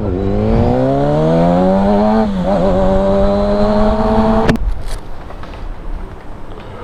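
A vehicle engine accelerating hard, its pitch climbing, dropping briefly at a gear change about two seconds in, then climbing again before cutting off suddenly. Lower background noise follows.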